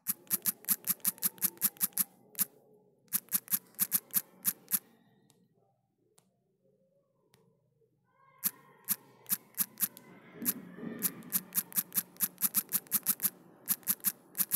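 Smartphone on-screen keyboard clicking at each key tap during fast typing, about six crisp clicks a second, in runs that stop for about three seconds midway and then resume.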